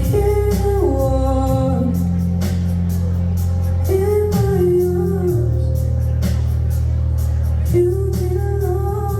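Live band music: sung vocal phrases with sliding pitch over a deep sustained bass line that shifts note every few seconds and a steady drum beat.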